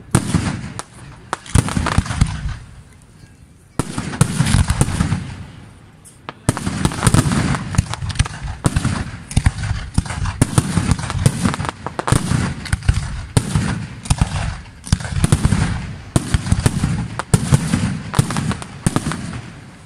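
Aerial fireworks display: shells bursting in rapid, crackling reports with deep booms. Two short lulls come about three and six seconds in, then the bangs and crackle run almost without a break.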